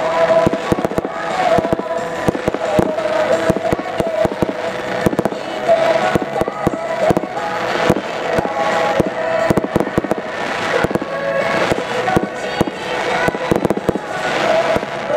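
Fireworks display: aerial shells bursting and dense crackling, with many sharp pops in quick succession throughout.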